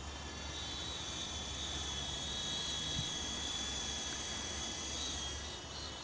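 Green Machines F45 electric RC model helicopter in flight: its motor and rotors make a steady high whine over a low hum, the whine wavering slightly in pitch near the end.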